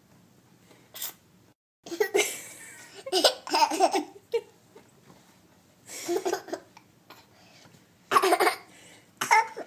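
Baby with the hiccups laughing in several short, high-pitched bursts with quiet gaps between them.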